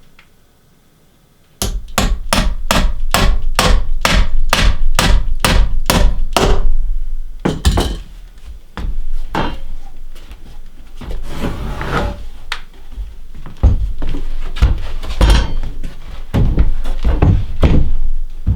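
Hammer driving nails into wooden stair framing: a quick run of about a dozen evenly spaced blows, about two a second, starting a second and a half in, then slower irregular knocks and scraping of timber.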